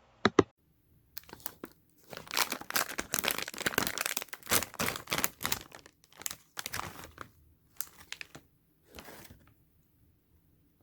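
Plastic chip bag being torn open and crinkled: a few sharp clicks, then several seconds of dense crackling rustle, thinning to a few scattered rustles near the end.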